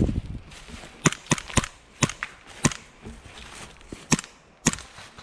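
Airsoft guns firing: about seven sharp single pops at irregular intervals, spread through the few seconds.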